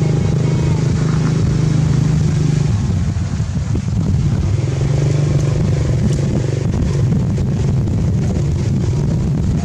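An engine running steadily with a low, even drone, easing off for a moment a few seconds in and then holding steady again.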